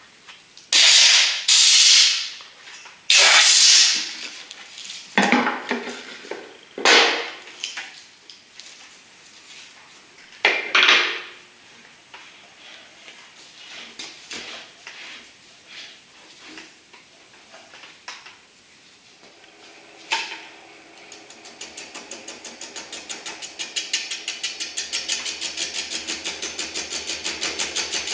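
A thin plastic container mold is pried and pulled off a cast epoxy blank, giving loud scraping, crackling and knocking bursts. About twenty seconds in a switch clicks and the wood lathe starts, turning the casting with a steady, rapid rhythmic beat that grows louder.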